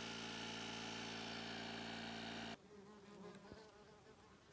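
A portable tyre-inflator compressor runs with a steady electric hum while reinflating a plugged flat tyre. The hum cuts off abruptly about two and a half seconds in, leaving the faint buzzing of yellowjackets flying around a bowl of water.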